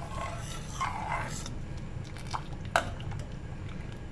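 Steel ladle stirring thick, creamy milk in a steel pot: soft scraping swishes, then two sharp clinks of the ladle against the pot in the middle.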